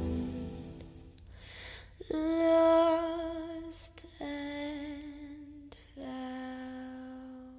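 A soft female voice singing the closing lines of a slow song, three long notes with vibrato, each a little lower than the one before, the last fading out as the song ends.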